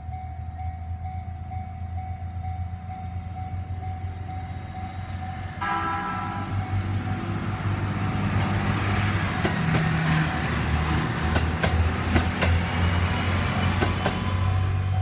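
A diesel train sounds its horn about five and a half seconds in, then runs over the level crossing, its engine drone and wheel noise growing louder with sharp clacks over the rail joints. The crossing's warning bell rings steadily throughout.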